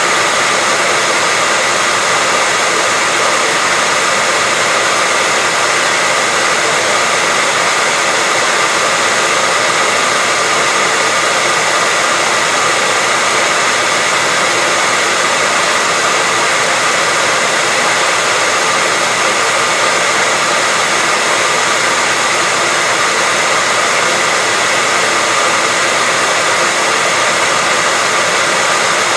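Hair dryer running continuously: a steady blowing rush with a faint constant whine.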